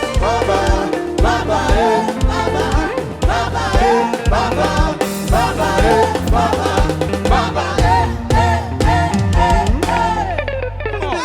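Live upbeat gospel praise music: a band with a steady drum beat and bass, and sung or played melody lines over it.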